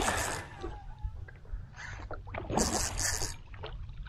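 Hooked redfish splashing and thrashing at the water's surface in two bursts: one at the very start and another a little under three seconds in. Under them runs a steady low rumble of water and wind.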